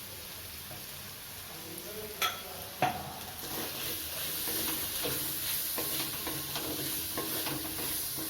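Whole spices (cardamom, cumin, panch phoron, cinnamon, black pepper) going into a hot, oiled cooking pan and frying with a steady sizzle. Two sharp knocks a little over two and nearly three seconds in, after which the sizzle grows louder.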